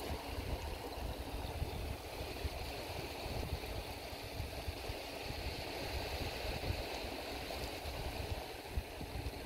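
Steady shoreline ambience: a continuous rush of water along the tidal rocks, with an uneven low rumble of wind on the microphone.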